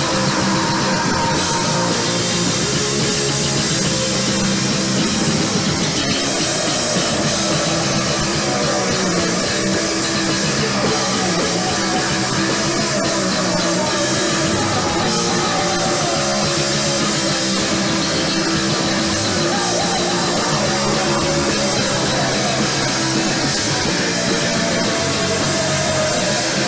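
Punk rock band playing live: electric guitar, bass and drum kit, loud and continuous.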